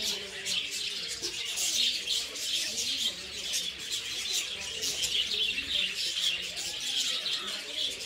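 A flock of budgerigars chattering: a dense, unbroken stream of high chirps and twitters.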